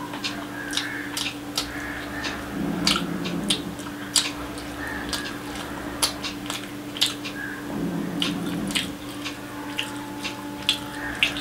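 Close-miked eating sounds: wet mouth smacks, chewing and squishing of fried rice mixed by hand with curry gravy, many irregular sharp clicks. A steady low hum runs underneath.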